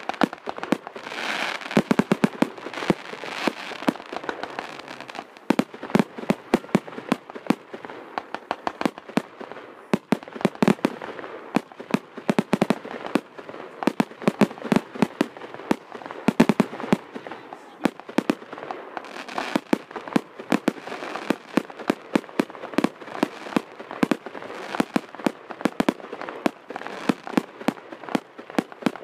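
Fireworks display: aerial shells going off in quick succession, several sharp bangs a second with crackling in between.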